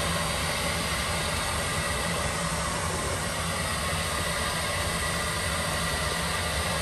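Boat's engine-compartment bilge blower running steadily: an even fan hiss over a low hum, with no change. It is venting gasoline fumes from the engine compartment before the engine is started.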